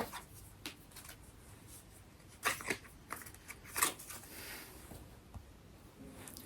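Tarot cards being handled: a few short, soft rustles and slaps, two close together midway and one more a second later.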